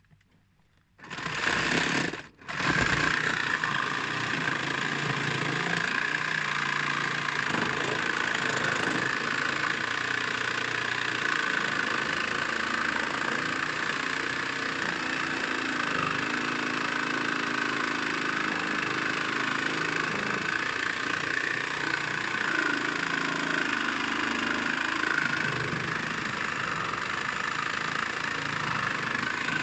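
Battery-powered cutting tool starting about a second in, cutting out briefly, then running steadily while it cuts through a pipe.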